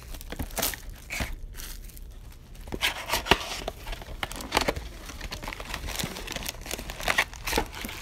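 Plastic packaging being torn and crinkled as a box of football trading card packs is opened: irregular crackles and rips, the loudest around three seconds in and again near the end.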